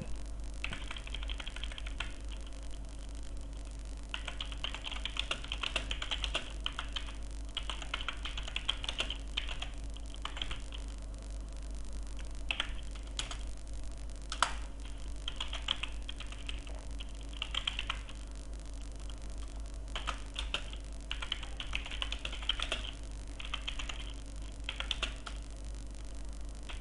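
Typing on a computer keyboard: runs of quick keystrokes with short pauses between them, over a steady low hum.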